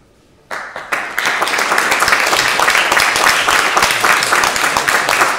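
Audience applause breaks out about half a second in, after a moment of near quiet. It quickly fills out into steady, dense clapping.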